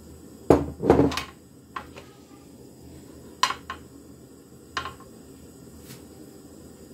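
Kitchen clatter of utensils and containers being handled: two loud knocks about half a second and a second in, then a few lighter clicks and taps.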